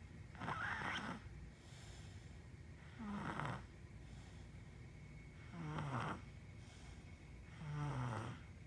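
Snoring: four snores about two and a half seconds apart, each a short noisy breath with a low tone that falls in pitch.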